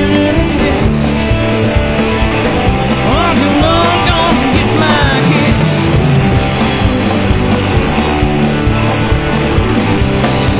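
Background rock music with singing over guitar and a steady beat.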